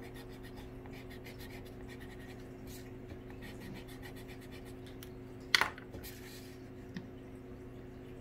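Pencil scratching across a wooden board in many short strokes as lines are drawn, with one sharper knock about five and a half seconds in. A steady low hum runs underneath.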